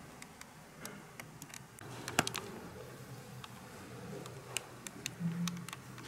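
Irregular light clicks and taps, a few a second at times, over faint room tone; the sharpest comes about two seconds in.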